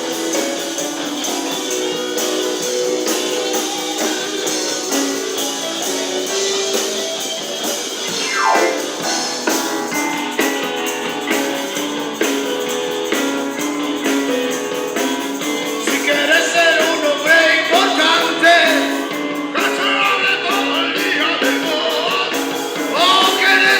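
Blues band playing live, guitars to the fore. A lead line with bending pitch comes in about two-thirds of the way through.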